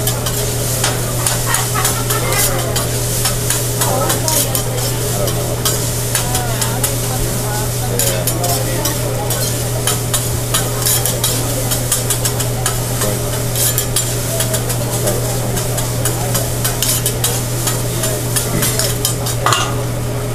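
Hibachi chef's metal spatula and fork scraping and clacking on a steel teppanyaki griddle as fried rice is tossed and chopped, in a rapid irregular clatter over the steady sizzle of the rice frying. A steady low hum runs underneath.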